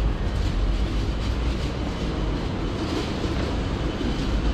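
Steady low rumble and hiss of city street background noise, with no single sound standing out.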